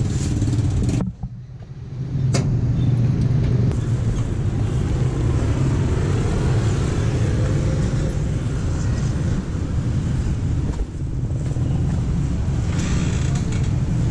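Small motor vehicle engine running steadily, heard from inside the passenger cab of a motorcycle-sidecar tricycle, with a brief drop-out about a second in.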